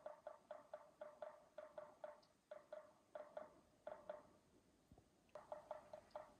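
Faint frog calls at a pond edge: an irregular run of short, hollow clucks, several a second, with brief pauses.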